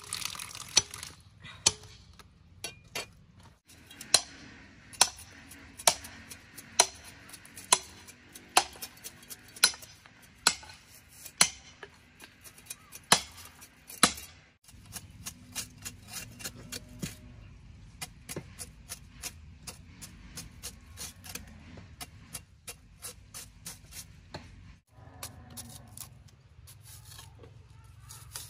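A heavy cleaver chopping and shaving the skin off a large wild tuber on a woven bamboo tray: a steady run of sharp knocks about one every second or less, giving way in the second half to lighter, quicker cuts and scraping.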